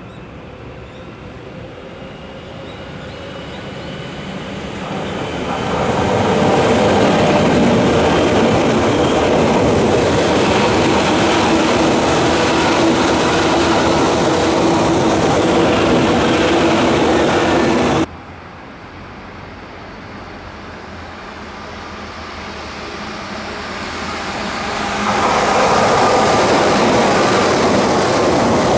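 Tokyu 8500 series electric train running close by: the noise builds as it approaches, then its traction motors and wheels run loud and steady, with several steady motor tones. About 18 seconds in the sound cuts abruptly to another 8500 series train that approaches and is loud again near the end.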